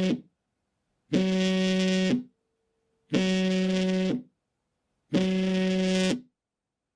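Mobile phone vibrating in a steady on-off pattern: buzzes about a second long, repeating every two seconds. Three full buzzes, with the tail of a fourth right at the start.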